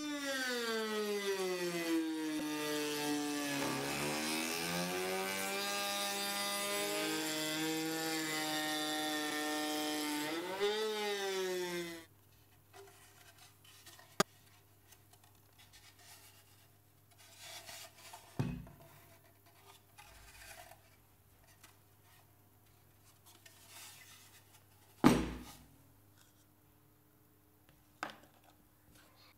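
Handheld rotary tool cutting an MDF speaker enclosure: its motor whine sags in pitch as the bit bites in, wavers, then rises again just before the tool stops about twelve seconds in. After that come a few knocks as the wooden enclosure is handled, the loudest one near the end.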